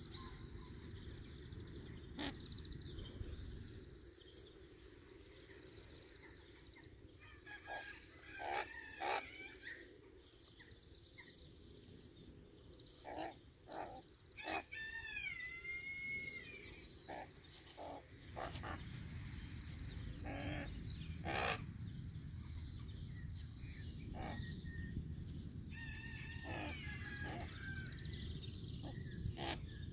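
Young common raven giving short throaty calls and chatters in several scattered bouts, one of them a longer call that bends in pitch. A low rumble runs at the start and through the second half.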